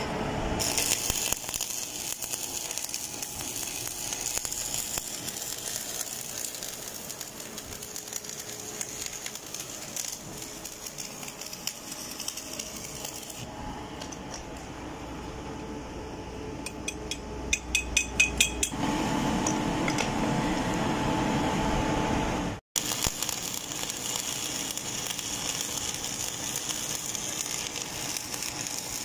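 Stick-welding arc crackling and hissing as the electrode runs on a pipe elbow joint. Partway through the arc stops, and a quick run of about eight sharp clicks is the loudest sound. The arc crackle returns for the last several seconds.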